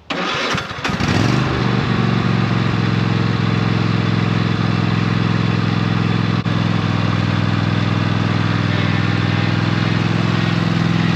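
Kohler 7000 series 20 hp V-twin engine on a Craftsman riding mower, cranked over by its starter for about a second and catching, then running steadily. It is started up just after a tune-up with fresh oil, plugs and filters.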